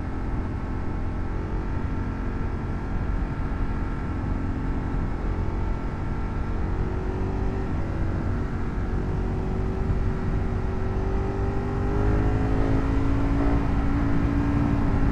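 Ducati 1098's L-twin engine pulling under throttle, with wind rushing past the helmet microphone; the engine note climbs slowly through the second half and gets louder about twelve seconds in.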